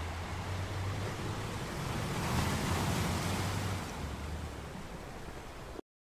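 Sea waves breaking against rocks on a beach: a steady wash of surf that swells as a wave crashes about two and a half seconds in, then eases off, before cutting off suddenly near the end.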